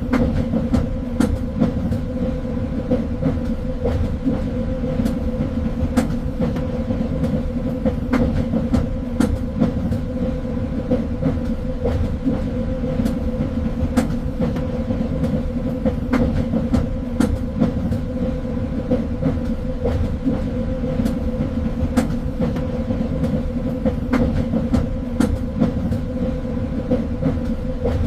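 A train running steadily along the track: a continuous low rumble with a steady hum, and frequent sharp clicks from the wheels on the rails.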